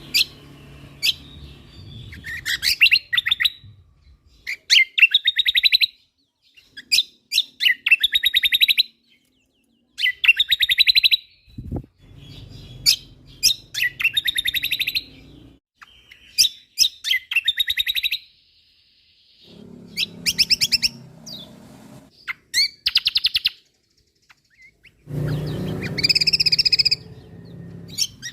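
Kecial kombok (cucak kombo) singing a rapid, full song: short bursts of fast, sharp chattering notes repeated every second or two with brief pauses between.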